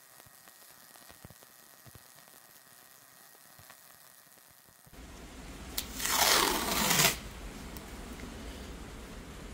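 Faint crackle of a stick-welding arc on a steel wheel rim. After a cut, one loud pull of adhesive tape off its roll, lasting about a second.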